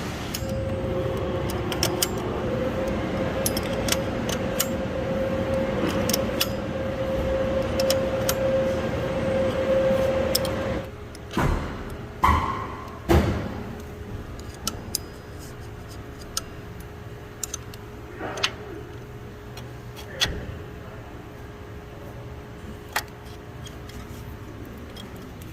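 Metal hand tools clinking and clanking against a power steering pump pulley and the tool pressing it on. A steady hum runs for about the first ten seconds, then come a few loud clanks, then scattered light ticks.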